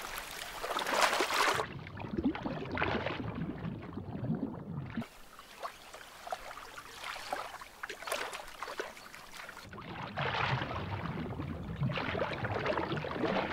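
Water splashing and sloshing as a grizzly bear thrashes through a river after salmon. In two stretches, one near the start and one from about two-thirds of the way on, the sound turns dull and muffled as the high hiss drops away.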